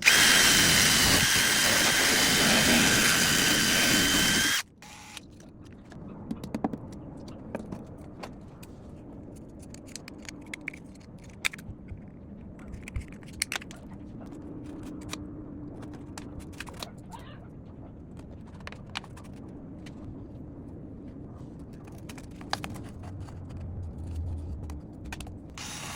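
Angle grinder running loudly with a steady high whine for about four and a half seconds, then stopping abruptly, followed by faint scattered clicks and knocks.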